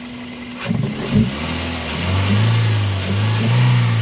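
Toyota Vios's four-cylinder petrol engine running again after a crank-but-no-start fault, now running well. It idles, gives a couple of knocks about a second in, then is revved up in two swells.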